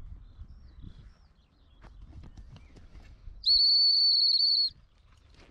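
Black plastic dog whistle used as an emergency recall whistle, blown once in a single steady high blast of a little over a second, about three and a half seconds in.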